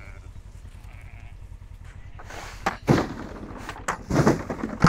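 Faint sheep bleats, then livestock feed poured from a sack into a feed trough: loud rustling and rattling starting about two seconds in.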